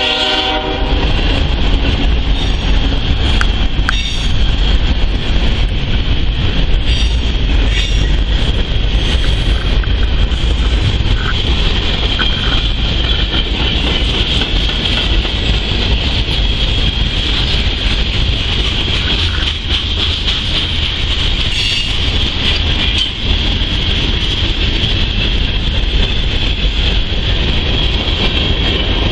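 Freight train passing close by: a locomotive horn cuts off right at the start, then a long string of freight cars rolls past. The cars make a steady low rumble and clatter of wheels on rail, with a steady high-pitched whine above it.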